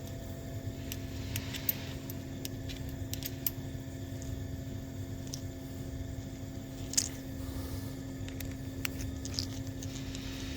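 A steady low hum with a few scattered sharp clicks and taps from hand work on the battery cable leads; the loudest click comes about seven seconds in.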